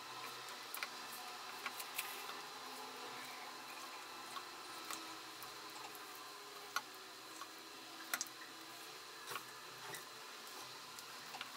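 Thick chocolate brownie batter being stirred and folded in a stainless steel bowl: faint soft squelching, with scattered light clicks of the utensil against the bowl.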